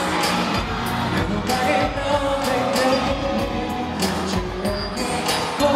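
A male pop singer singing live into a handheld microphone over an amplified backing track with a steady beat.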